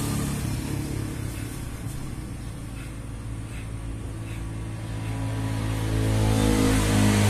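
Corded electric hair clippers buzzing steadily, growing louder near the end.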